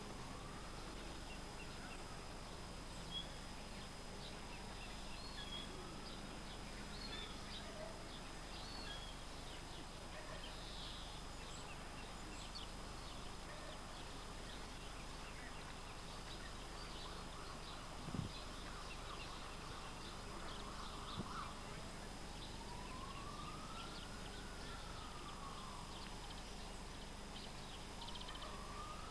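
Faint outdoor background hiss with scattered distant bird chirps and a faint tone that slowly rises and falls a few times. Two short soft thumps come about three seconds apart in the second half.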